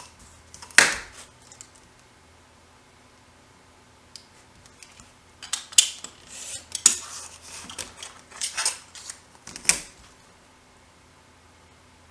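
Paper and small craft tools handled on a work table: a sharp tap about a second in, then after a few quiet seconds a run of clicks, taps and brief paper rustling.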